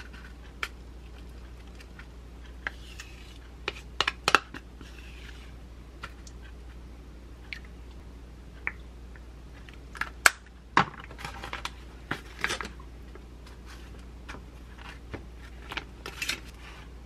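Food-prep handling sounds: a spoon scraping and knocking against a plastic yogurt tub and a ceramic bowl, with scattered sharp clinks and taps. A plastic wrapper crinkles in short stretches midway and again near the end as a packaged donut is unwrapped.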